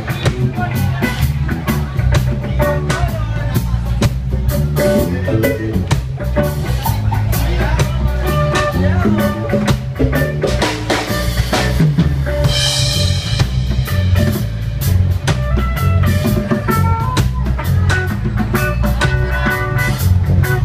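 A live band playing amplified music during a sound check: a drum kit keeps a steady beat over a heavy bass line, with other instruments on top.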